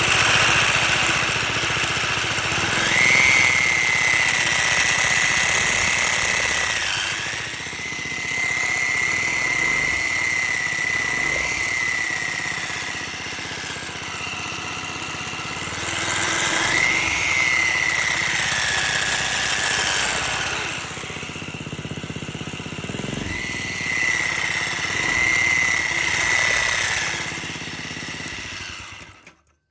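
Mini bike engine revved four times with a 3D-printed supercharger driven off a small pulley, spinning very fast: a loud, high whistle from the supercharger comes in with each rev and bends up and down in pitch with the revs, over the engine's running noise. The sound stops suddenly near the end.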